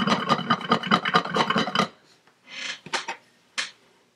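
Iced sugar cookie shaken rapidly back and forth on a hard work surface: a fast, even rasping rattle, about eight strokes a second, that stops suddenly about two seconds in. The shaking settles runny flood icing so the lines heal into one smooth section. Then a brief faint scrape and a couple of light knocks.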